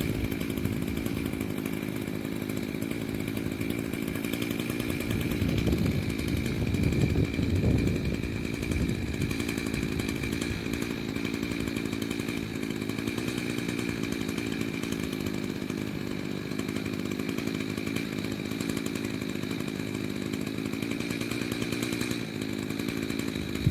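Echo CS-590 Timber Wolf chainsaw running at a steady high pitch through a long cut into a tree, a little louder about six to eight seconds in.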